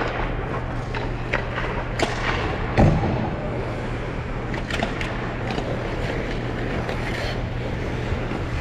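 Ice skate blades scraping and gliding on rink ice, with scattered short scrapes and clicks over a steady low hum, and one louder thump near the three-second mark.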